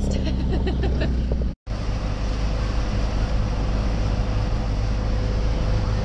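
Camper bus's engine and road noise heard from inside the cabin while driving: a steady low rumble with a faint steady whine above it. The sound cuts out briefly about a second and a half in, then carries on.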